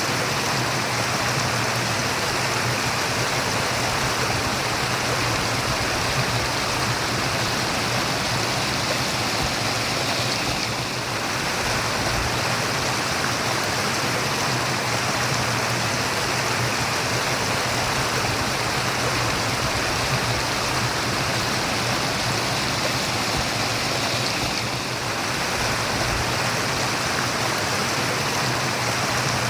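Water of a stream running and murmuring in a steady, continuous rush, easing slightly twice.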